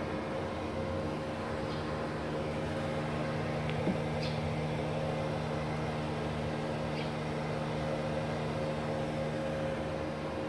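Steady hum and fan noise from an idling inverter MIG welder, with a low drone that sets in just after the start and stops near the end, and a single faint click about four seconds in; no arc is struck.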